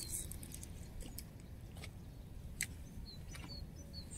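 Faint outdoor ambience: small bird chirps in short runs of quick descending notes over a low rumble, with a few sharp clicks.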